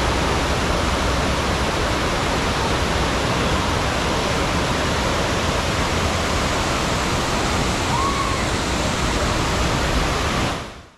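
Steady, even rushing of water pumped over a FlowRider surf simulator, fading out quickly near the end.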